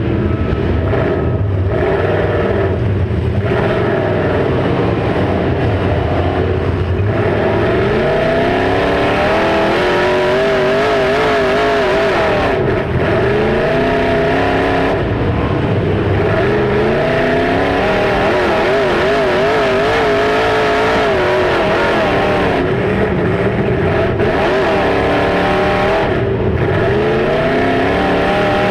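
Demolition derby car engines revving hard, the pitch climbing and dropping over and over.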